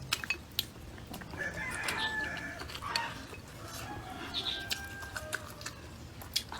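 Chickens in the background: a rooster crowing and hens clucking, with two drawn-out calls about one and a half and five seconds in. Scattered light clicks and knocks sound over them.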